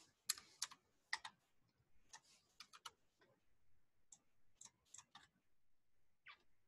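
Faint computer keyboard and mouse clicks: a series of sharp, brief clicks in small clusters as numbers are typed into fields and selections made.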